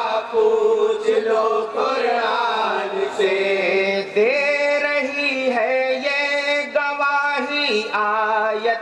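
Group of men singing an Urdu naat, drawing out long held notes with wavering turns between phrases.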